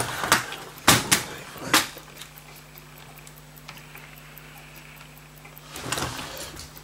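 Sharp plastic clicks and knocks from handling a clear plastic compartment box full of old pocket-watch parts, four of them in the first two seconds, then a short rattling clatter near the end as the box is set down and the loose metal parts shift.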